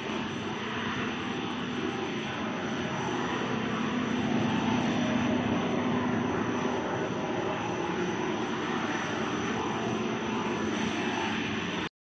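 Plastic rope blowing line running: a steady machine drone and rushing hiss with a low hum. It cuts off suddenly near the end.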